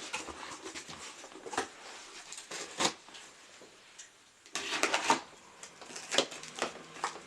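Cardboard box and packaging being handled and opened: scattered clicks and taps, with a louder burst of rustling about four and a half seconds in.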